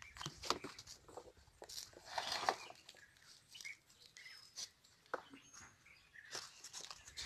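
Faint open-air ambience with a few short, high bird chirps scattered through it, among soft clicks and rustles.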